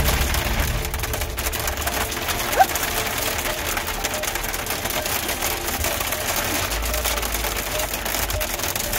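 Dense, rapid patter of hail and rain ticking on a Jeep, over a low engine rumble as it crawls down a rocky trail. A brief squeak cuts through about two and a half seconds in.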